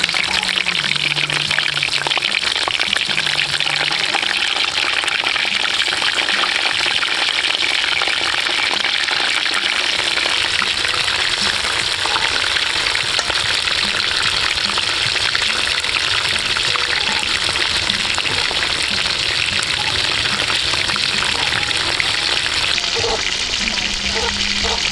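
Batter-coated mushrooms deep-frying in hot oil in a wok: a steady, dense sizzle and crackle.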